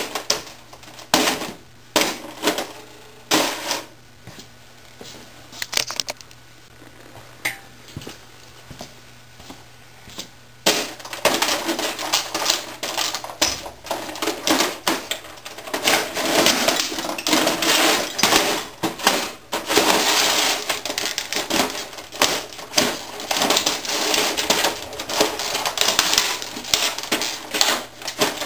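Wesco leather boots stomping on and crushing an old 1980s electronic word processor. The first few seconds hold sharp separate stomps and cracks, then a quieter stretch with a few clicks. About eleven seconds in comes a dense, continuous crunching and cracking as the machine's housing is ground and broken underfoot.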